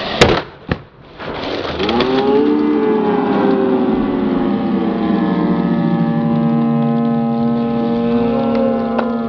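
Skateboard slamming down on concrete at the bottom of a stair set: a loud crack and a second knock right after. Then spectators let out a long, drawn-out groan of several voices at once, held for several seconds as the skater bails.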